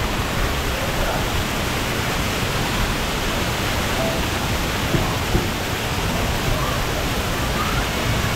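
Steady rushing and splashing of water from a water-park splash pad's fountains and sprays, with faint voices in the background.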